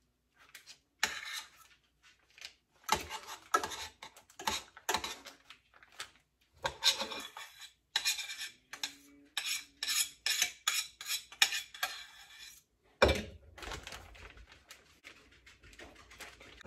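A metal spoon scraping and clinking against a stainless steel saucepan in quick, irregular strokes as thick cream is scooped out. There is a heavier knock about 13 seconds in, followed by softer rustling.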